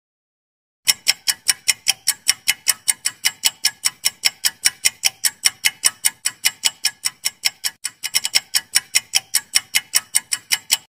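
Quiz countdown timer sound effect: fast, even clock-like ticks, about five a second, starting about a second in and stopping just before the end, with a brief stumble of closer ticks near the eight-second mark.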